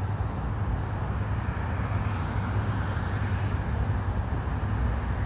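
Steady low rumble of wind buffeting the microphone, with a haze of outdoor traffic noise behind it.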